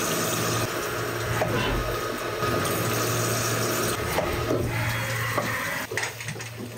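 Haas CNC vertical mill drilling holes under flood coolant. Coolant spray hisses and splashes steadily over the low hum of the spindle and machine. The hum breaks off briefly several times as the drill moves between holes, and drops away near the end.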